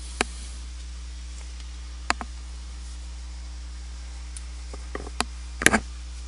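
A few short, sharp clicks scattered over a steady low hum and hiss, with the loudest little cluster of clicks near the end.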